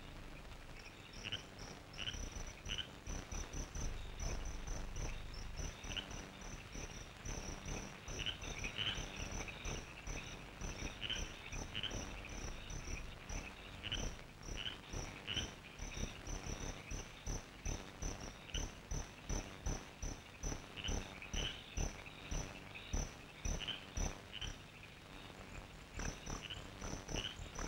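Night ambience of crickets chirping in a steady rhythm, about twice a second, with other irregular insect calls mixed in and soft low thumps underneath.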